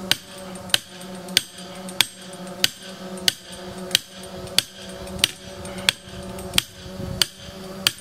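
Steel star picket being hammered into the ground: about a dozen evenly paced, ringing metal-on-metal strikes, roughly three every two seconds.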